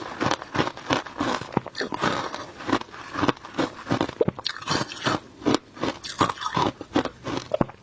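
Close-miked biting and chewing of shaved passion-fruit ice: a quick, irregular run of sharp crunches, two or three a second.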